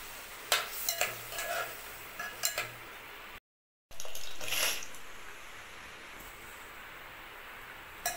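A pot of sambar simmering with a steady hiss, and a metal utensil clinking against the pot several times. After a short break, cooked dal is poured in with a brief splash, and the spoon clinks against the pot again near the end.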